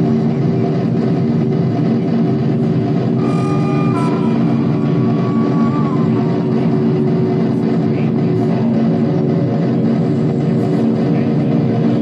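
Experimental noise music: a loud, dense, unbroken droning texture with steady low tones. A higher tone enters about three seconds in and slides slightly downward before fading around six seconds in.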